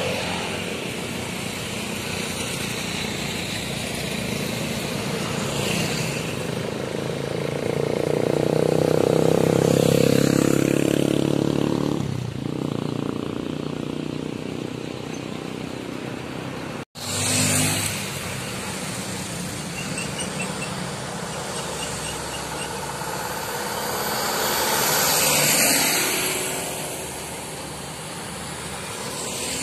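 Road traffic passing close by: cars, motorcycles and a bus, their engines and tyres swelling and fading, the loudest pass about ten seconds in and another about twenty-five seconds in. The sound drops out for an instant about seventeen seconds in.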